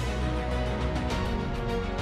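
Background music bed with strong bass, sustained pitched notes and percussion hits.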